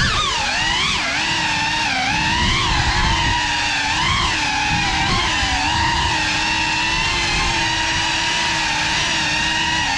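Small FPV quadcopter flying, heard from the camera on board: the electric motors and propellers whine steadily, the pitch rising and falling with each throttle change, over a low rush of prop wash.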